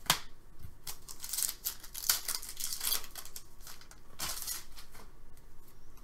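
Clear plastic bag crinkling and rustling as it is handled with trading cards: a quick run of crackles through the first three seconds and a second burst about four seconds in.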